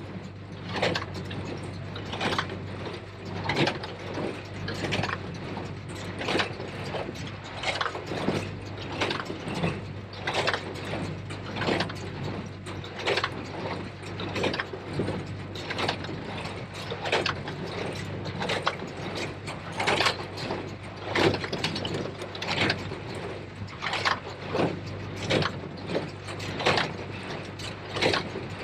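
New Holland 273 square baler working behind a Case IH JX75 tractor: the baler's plunger and mechanism clank in a steady rhythm, a little more than once a second, over the tractor engine's steady drone.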